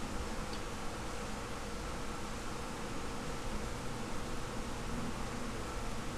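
Steady background hiss with a faint hum: room tone, with no distinct event.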